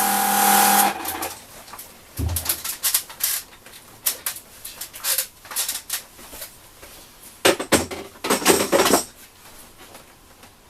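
The Hitachi Koki AW18DBL cordless washer pump runs with a steady hum and shuts off about a second in. It is followed by scattered clicks and clattering of hard objects being handled, loudest in two bursts near the end.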